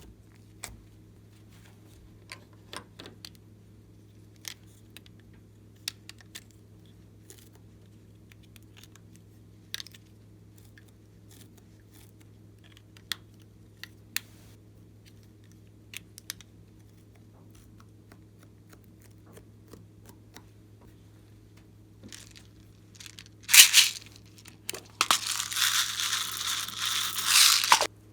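Scattered soft clicks and pops of slime being handled. About five seconds from the end comes a loud tearing burst, then a few seconds of loud, steady rustling tearing noise.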